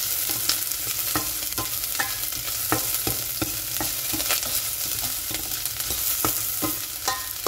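Sliced onion and garlic sizzling in hot oil in a stainless steel pot, with a metal spatula scraping and clicking against the pot about twice a second as it is stirred. The aromatics are wilted and fragrant.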